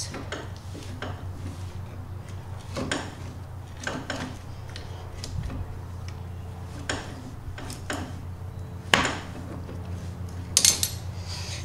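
Pliers and a screwdriver clinking and scraping on a steel push nut and roller axle as the nut is twisted and pried off. Scattered sharp metallic clicks, the sharpest about nine seconds in, over a steady low hum.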